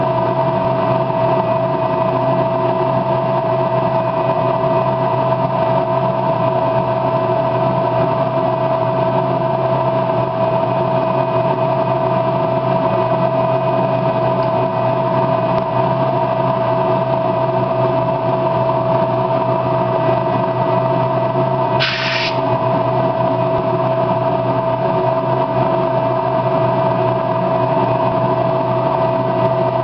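A steady machine hum with a constant pitched tone, and about 22 seconds in one short hiss: a brief burst from an aerosol spray-paint can.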